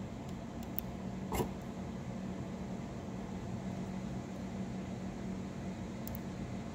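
Steady low mechanical hum, like a fan or air-conditioning unit running, with a single sharp knock about a second and a half in.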